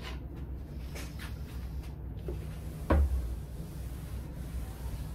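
Whiteboard eraser rubbing and wiping across a whiteboard, with a single knock about three seconds in.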